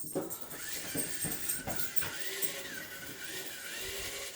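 A small robot's electric drive motors whirring as it drives and turns, with a high whine that wavers up and down in pitch.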